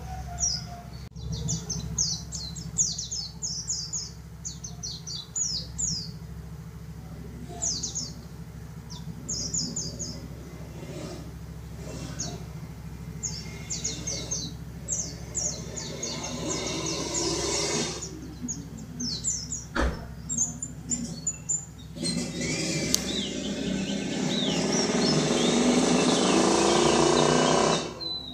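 Yellow-breasted white-eye (pleci dakun) singing in repeated bursts of rapid, high twittering chirps. About three-quarters of the way in, a loud rushing noise rises beneath the song and then cuts off suddenly near the end.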